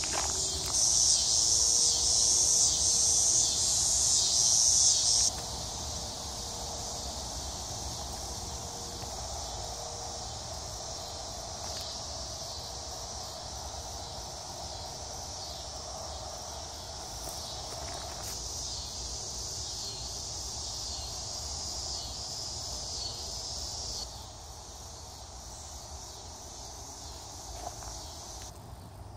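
Insect chorus outdoors in summer: a steady, high buzzing that is loud at first, drops in level about five seconds in, and falls again near the end.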